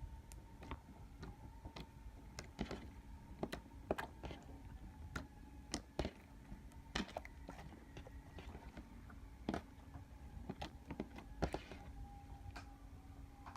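Slime being handled, giving faint, irregular clicks and small pops every fraction of a second to a second, over a low steady hum.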